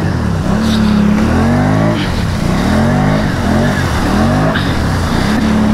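ATV engine revving up and down over and over, about once a second, held high briefly twice, as the quad is worked through deep mud ruts.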